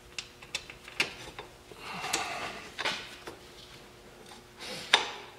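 Scattered light metallic clicks and clinks of brake caliper bolts and parts being handled and fitted by hand, with a brief rustle about two seconds in and a sharper knock near the end.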